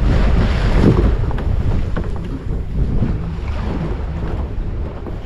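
A wooden diving boat's engine running, with wind buffeting the microphone in a steady low rumble.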